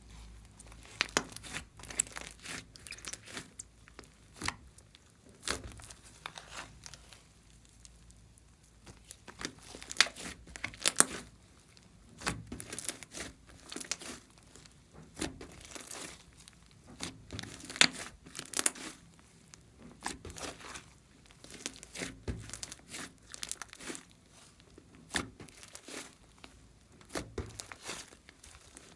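Slime mixed with floam beads being squeezed and stretched by hand, giving irregular sharp crackles, pops and crunches, some loud and some faint, with short quiet pauses between squeezes.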